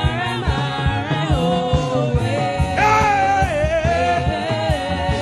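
Gospel praise music played by a band with drums and bass, with long sung notes held and bent over the beat.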